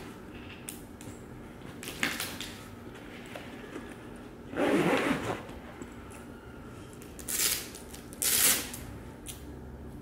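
A backpack and a crumpled brown bag being handled and rummaged through, rustling in several short bursts, the longest about five seconds in.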